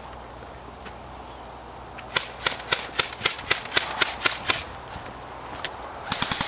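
Double Eagle Krinkov airsoft rifle firing: about ten sharp single shots at roughly four a second, then a quicker burst near the end.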